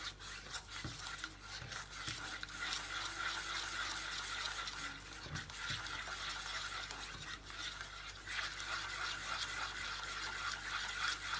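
Silicone spatula stirring and scraping a thick egg-yolk, yogurt and sugar mixture around a bowl: a continuous wet rubbing and scraping with an uneven stroke rhythm.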